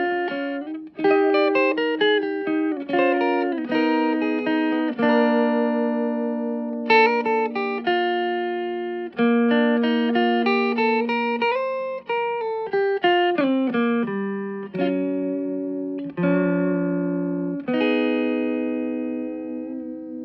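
Electric guitar played clean through a Fender Bronco amplifier: a continuous phrase of plucked single notes and double-stops, some left to ring and decay, with a slide in pitch partway through.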